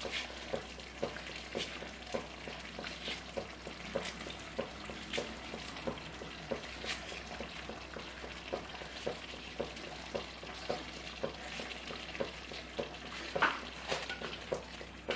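Chicken masala sizzling in a clay pot, with soft regular clicks about twice a second as a tomato is sliced by knife in the hand over the pot and the pieces drop in. A few louder clicks come near the end.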